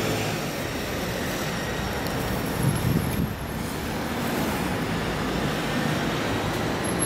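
Scania K410 coach's 13-litre six-cylinder diesel engine running as the coach moves along the street, over steady road traffic noise; a short louder low rumble about three seconds in.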